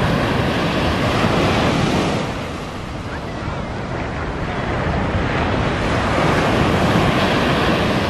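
Sea waves breaking on a sandy beach and washing up the shore. The surf is loud for the first couple of seconds, eases off, then swells again as the next wave breaks.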